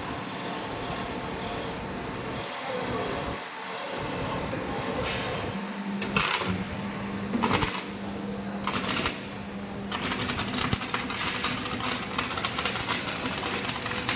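Butt welding autoloader and flash-trimming machine running: a steady mechanical drone with a low hum that sets in about five seconds in, several short air hisses in the middle, then a dense rapid crackle of clicks for the last few seconds.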